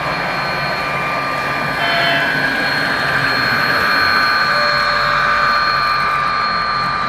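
Model freight train running past behind two Southern Pacific diesel locomotives: a steady mechanical whir with a constant high whine, growing a little louder about two seconds in as the train draws near.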